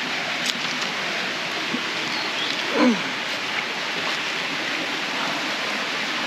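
Small stream running over rocks, a steady rushing of water. About three seconds in, a short falling voice-like sound.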